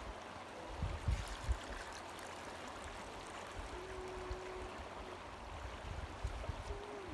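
Steady rush of flowing river water, with a few low thumps about a second in.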